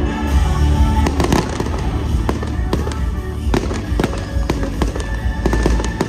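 Fireworks display set to music: a steady string of firework bangs and reports, several a second, over a music soundtrack with heavy bass.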